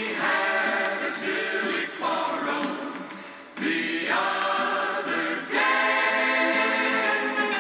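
Music with singing playing from a vinyl LP on a Magnavox MD-708 record player, heard through its small built-in speaker, with almost no bass.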